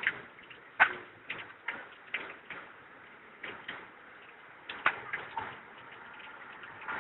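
Irregular sharp clicks and light knocks, about one or two a second, the loudest a little under a second in.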